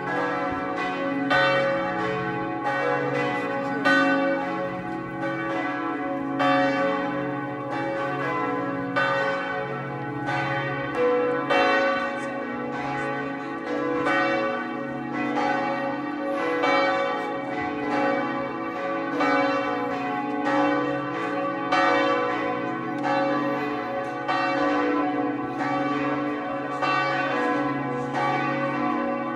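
Church tower bells of the Sint Martinuskerk swinging and ringing in a continuous peal, several bells sounding together with their strokes overlapping in quick succession.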